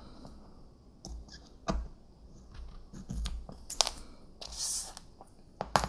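Small plastic and metal pistol trigger parts being handled and set down on a work mat: scattered sharp clicks and taps, with a brief rustle between them. The sharpest clicks come about four seconds in and near the end.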